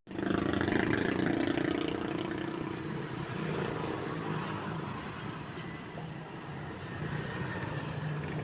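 A motor vehicle engine running steadily, a little louder for the first couple of seconds before settling.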